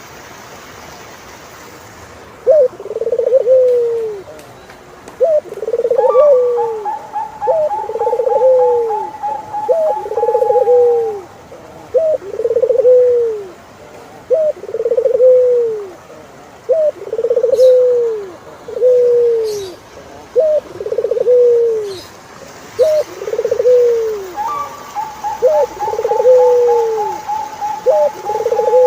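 Turtle dove calling: a long series of short purring coos, each sliding down in pitch, about one a second, starting about two seconds in. A steadier, higher trill runs beneath it twice for several seconds.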